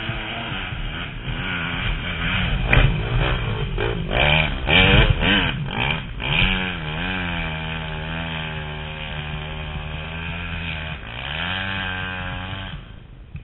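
Off-road dirt bike engine on the rider's own machine, revving up and down choppily over rough trail with a few sharp loud spikes, then holding steady revs for several seconds before the throttle drops off near the end.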